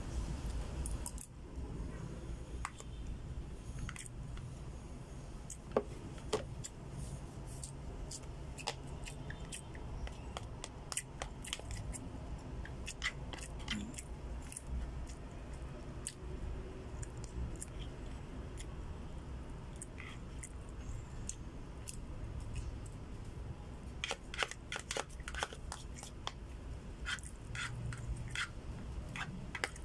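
A spoon clicking and scraping against a plastic food container, with chewing, during a meal. The clicks come irregularly, with a quick flurry of them near the end, over a steady low hum.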